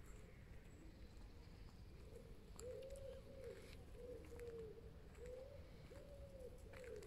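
Pigeon cooing faintly: a run of soft coos, each rising and falling, starting about two and a half seconds in.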